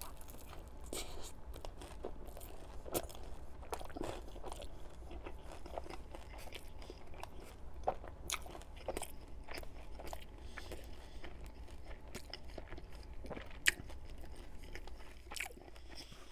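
Close-miked chewing of a crispy deep-fried spring roll with a vegetable and pork filling: a steady run of small crunches, with one louder crunch late on.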